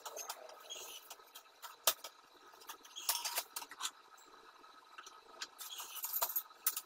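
Light clinks and taps of thin powder-coated iron tubes being handled and slotted together. They come as scattered knocks, the sharpest about two seconds in, with small clusters of clicks around three seconds and near the end.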